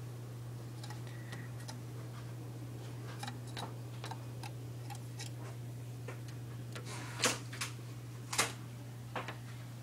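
Northern cardinal pecking at a glass sliding door: a run of irregular sharp taps on the pane, with a few louder knocks near the end, over a steady low hum.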